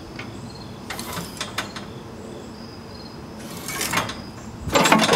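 Concrete slabs scraping and knocking against each other and their stone supports as a two-slab concrete beam with steel wire across its top is loaded down and sags into a V in the middle. Several short grinding bursts, the loudest near the end, over faint cricket chirping.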